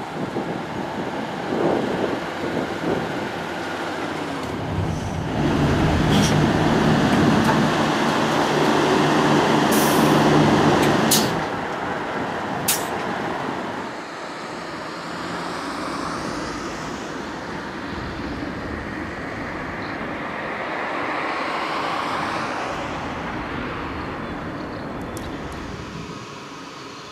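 Diesel route bus pulling away and driving past, its engine loudest about a third of the way in, with three short sharp air hisses from the bus partway through. Afterwards the engine fades into quieter road traffic.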